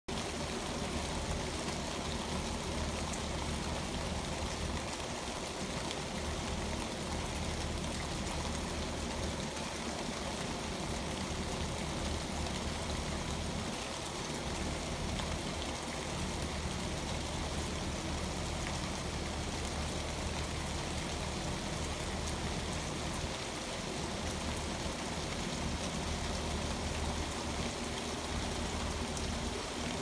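Steady rain falling through tree leaves, an even hiss with a low rumble underneath.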